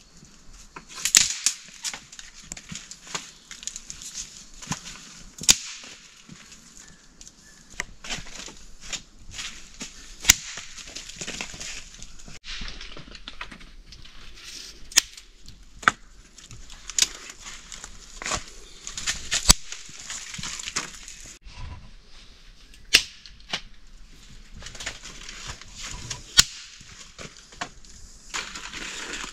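Wooden sticks and bamboo poles knocking and clacking as they are handled and laid down: sharp, irregular knocks, a few much louder than the rest, over rustling of dry leaves and brush.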